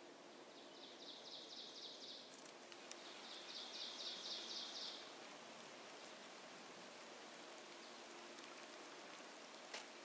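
Two ovenbird songs, each a rapid run of evenly repeated high notes lasting about two seconds, the second louder; faint, over a steady hiss. A short click near the end.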